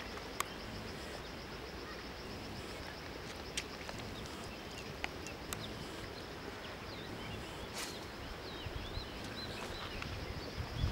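Open-air ambience at a lakeshore: a steady background hiss with a few faint, scattered clicks, and small bird chirps in the second half.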